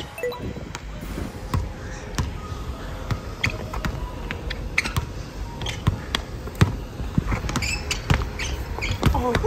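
Basketball being dribbled on an outdoor court, with irregular bounces, and a few short sneaker squeaks toward the end.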